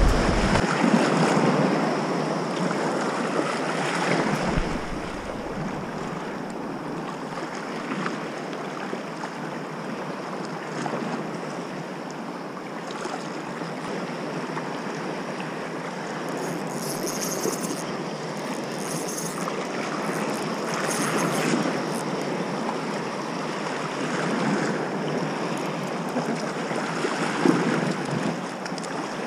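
Small waves washing over rocks in shallow sea surf, with wind buffeting the microphone.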